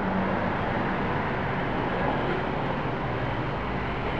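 Steady background noise: an even hiss with a faint low hum beneath it, unchanging throughout.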